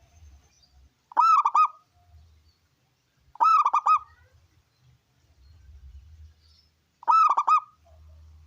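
Zebra dove (perkutut) singing: three short phrases of rapid cooing notes, each about half a second long.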